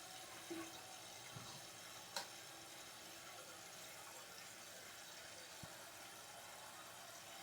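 Toilet tank refilling: faint, steady hiss of water through the new fill valve, with the refill tube running into the overflow tube. A single sharp click a little over two seconds in.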